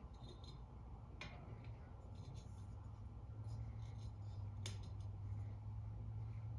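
Frosted glass ceiling-fan light globe being handled and turned at its metal center fitting while it is installed: light scraping and rubbing of glass and metal, with two sharp clicks, about a second in and near the three-quarter mark. A low steady hum sits underneath, stronger from about halfway.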